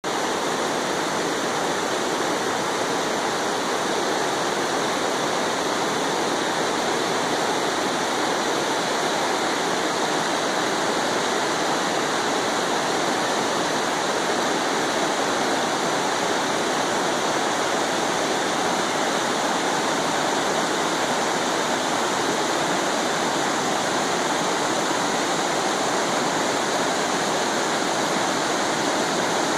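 Small rocky stream rushing over flat rock ledges in shallow cascades: a steady, even rush of water.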